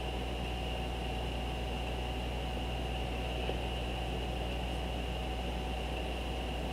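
Steady electrical hum and hiss from a computer screen-recording setup with its microphone open, with faint steady whine tones above it and no other event.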